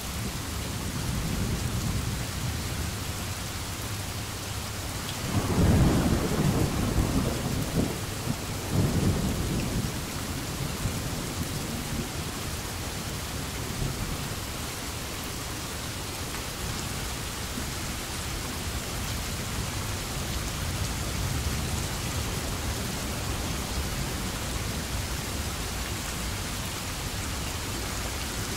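Steady rain falling, with a roll of thunder about five seconds in that rumbles for several seconds, swelling twice before it fades back into the rain.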